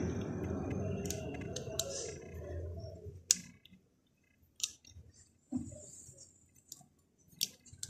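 Small sharp plastic clicks, about half a dozen spread unevenly, as SIM cards are pushed and seated into the card slots of a Q Mobile L12 feature phone with its back cover off.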